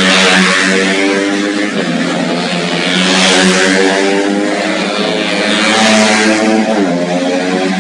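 Racing motorcycle engines running hard, with the engine pitch shifting now and then and the sound swelling as bikes pass, about three times.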